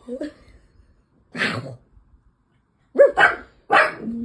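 A dog barking in short bursts, about four times, two of them close together about three seconds in.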